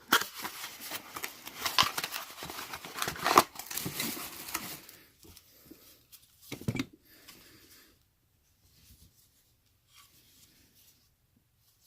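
Plastic packaging crinkling and tearing as it is pulled open, with many sharp crackles for about five seconds. A short knock follows a little later, then only faint handling sounds.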